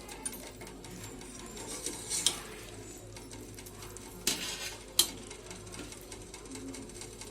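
A pan of sugar syrup simmering while chenna balls for rasgulla are put into it, with a spoon clinking against the pan: sharp clinks about two seconds in and again about five seconds in.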